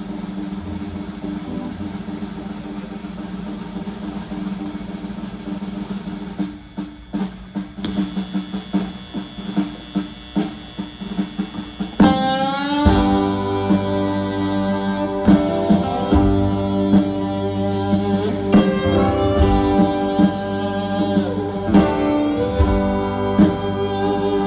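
Live band playing the instrumental intro of a country-rock song. Held guitar tones give way about six seconds in to a quick rhythmic picking, and about twelve seconds in the full band comes in loud with drums.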